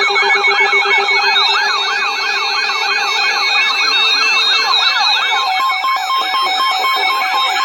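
Emergency alert attention signal: rapidly repeating siren-like rising sweeps, about three a second, layered with steady on-off beeping tones.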